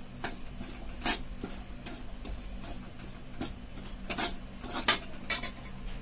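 Slotted steel spoon stirring dry rice flour and powdered sugar in a metal kadai, scraping and clinking against the pan in irregular strokes.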